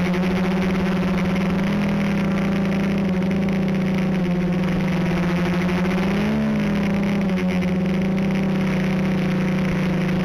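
Quadcopter electric motors and propellers whining steadily in flight, with a brief rise and fall in pitch about six and a half seconds in as the throttle is changed.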